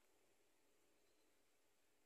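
Near silence: faint steady hiss.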